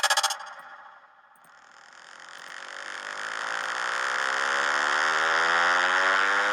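DJ riser sound effect: a buzzy tone that slowly climbs in pitch and swells louder over about five seconds. At the very start, the tail of a rapidly pulsing effect cuts off and fades.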